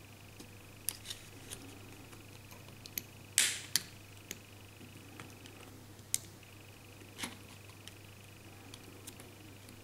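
Plastic clips of a Huawei Y550 smartphone's housing snapping loose as a metal pry pick is worked along the seam, with small clicks and scrapes of the tool; one loud snap about three and a half seconds in, followed quickly by a second sharper click.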